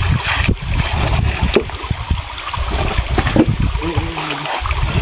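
Hands digging into wet gravel and shifting river stones at a crab hole beside running stream water, with scattered clicks of stone on stone over a low rumble. A brief faint voice comes in about four seconds in.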